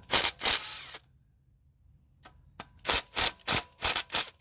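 Sharp metal clinks and clatters of loose bolts and hand tools being handled, two near the start, then a quick run of about five, roughly three a second, near the end.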